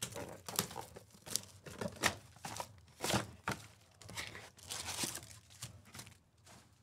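A 2020 Topps Chrome Sapphire trading-card box and its pack wrapper being torn open, with a run of irregular sharp rips and crinkles of the wrapping.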